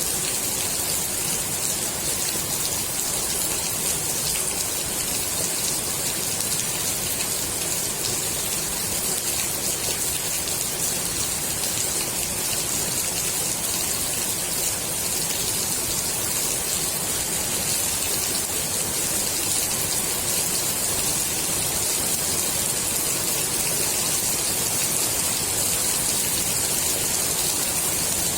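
Steady rain falling on the water of a swimming pool: an even, bright hiss of drops that does not let up.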